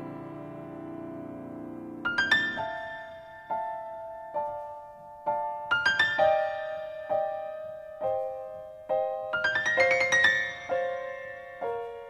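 Background piano music. A held chord fades out, then quick rising runs of high notes alternate with a slow melody of single notes struck about once a second.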